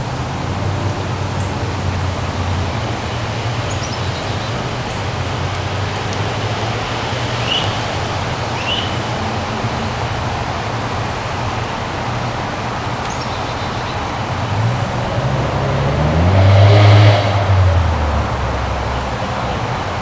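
Steady rumble of road traffic with a low engine hum throughout. Near the end a vehicle passes close, its engine rising in pitch and growing loudest for a couple of seconds. Two faint, short bird chirps come in the middle.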